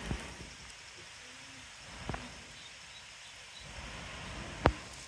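Three sharp taps over a faint outdoor background, the loudest near the end.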